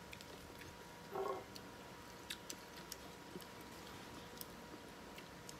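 Faint scattered clicks of eating: a whole shrimp chewed with its shell on, and chopsticks touching the dishes. A brief murmur of a voice about a second in.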